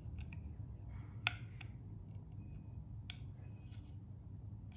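Small plastic parts being handled by fingers: faint rustling with a sharp click a little over a second in and another around three seconds in, over a low steady hum.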